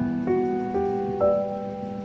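Soft background piano music, a slow melody of single sustained notes.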